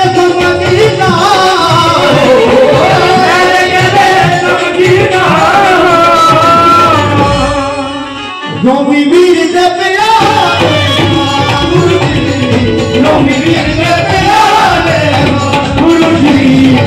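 Live Punjabi Sufi devotional song: a male singer's voice through a PA system, with harmonium and hand-drum accompaniment. The music dips briefly about eight seconds in, then carries on.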